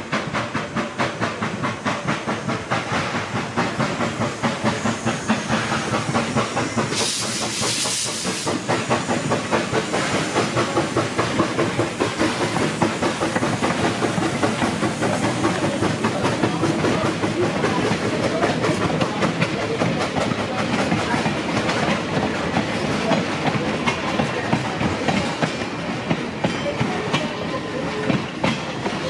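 Edison steam locomotive running, a quick steady beat throughout, with a short burst of high steam hiss about seven seconds in.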